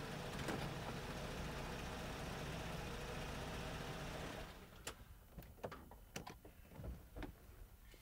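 Car engine idling, then switched off about four and a half seconds in, followed by a scatter of light clicks and knocks.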